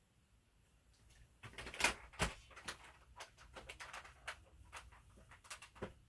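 A run of irregular knocks, clicks and scuffs beginning about a second and a half in, the two loudest close together about two seconds in. No steady vacuum motor is running.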